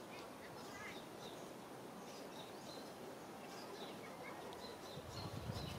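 Faint outdoor ambience with scattered short, high bird chirps, and a low rumble starting near the end.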